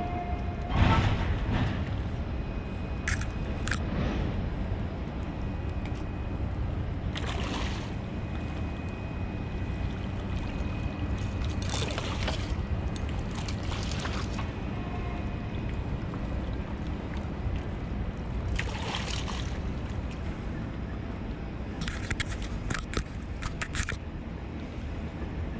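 Sea water sloshing against shoreline rocks in a steady low rush, with a short splash every few seconds and a quick run of sharp splashes near the end.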